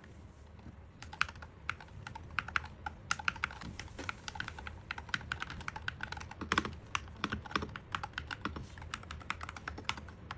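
Typing on an Epomaker HE68 65% Hall effect mechanical keyboard: irregular keystroke clicks that begin about a second in and become quicker and denser toward the end.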